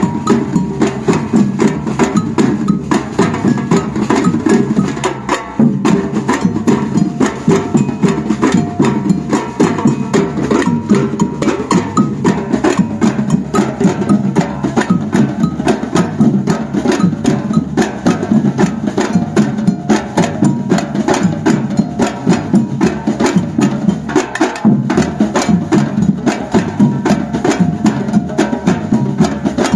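Batucada samba percussion band playing a fast, driving groove: many drums struck together in a dense, steady beat with sharp clacking strokes over it, and no singing.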